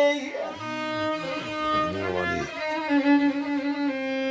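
Solo violin playing a slow, ornamented phrase of a suwaihli folk melody, with slides between notes, settling on a long held note for the last second or so.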